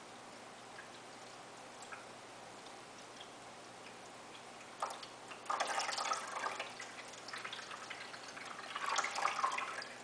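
A cat's paw splashing in the water of a Drinkwell pet fountain, dabbing at the falling stream and bowl. It starts about five seconds in, loudest in two spells, the second near the end.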